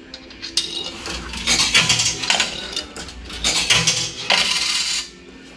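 Coins being fed into a car park pay machine, clinking and rattling through the coin mechanism for several seconds; the machine is not accepting them.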